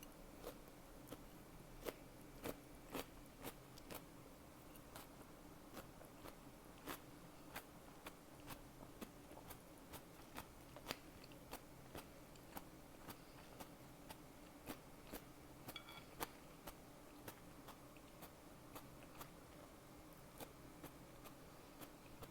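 Close-miked chewing of a crisp salad topped with nori: a steady run of short, sharp crunches, roughly two a second.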